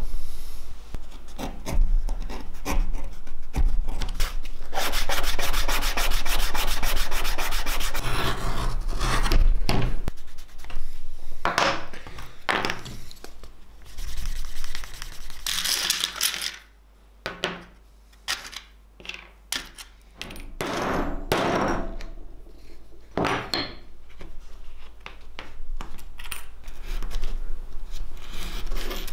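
Hand leatherworking on a leather axe sheath: rubbing and scraping strokes. In the first half the strokes come in a fast, dense run. Later they fall to single strokes, with a quieter stretch of short clicks before the rubbing picks up again near the end.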